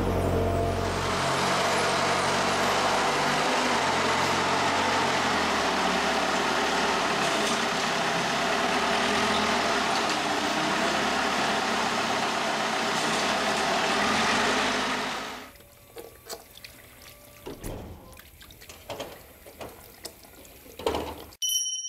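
A steady loud hiss, with a forklift's engine running low underneath only at the start; the hiss cuts off about fifteen seconds in, leaving scattered knocks, and a bright chime rings near the end.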